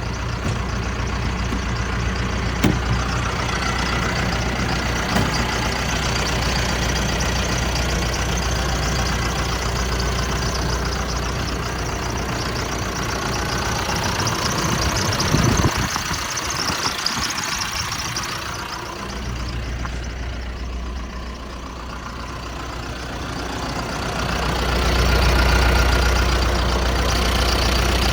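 John Deere 310J loader backhoe's four-cylinder diesel engine running steadily. A sharp knock comes about fifteen seconds in, then the low engine hum drops away for a few seconds. It comes back and grows louder near the end.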